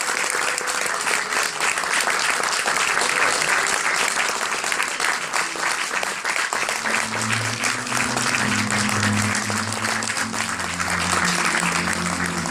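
Audience applauding steadily. About halfway through, music with low sustained notes comes in under the clapping.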